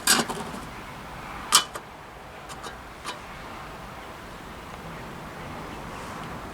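A few sharp clicks and knocks of containers being handled while oil is poured, the loudest about a second and a half in, over a steady faint hiss.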